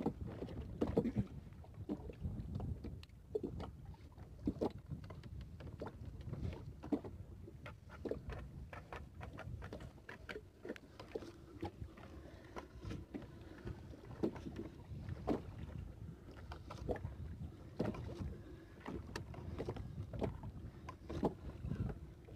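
Small fishing boat at sea: water lapping and sloshing against the hull over a low rumble, with scattered knocks and taps from the net and lines being hauled aboard by hand.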